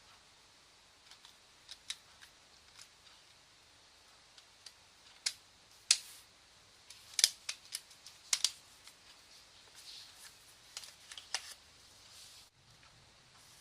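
Irregular series of small, sharp clicks and taps as a smartphone's plastic parts are handled during repair, the loudest clustered in the middle.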